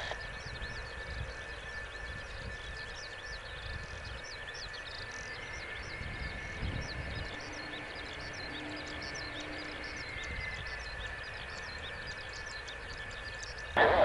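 Distant F-4EJ Kai Phantom II's twin J79 turbojets running steadily as the jet rolls along the runway: a steady high whine over a low rumble.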